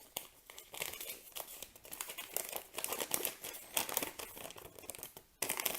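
Paper instruction sheets being unfolded and handled, crinkling in quick irregular rustles, with a brief pause near the end.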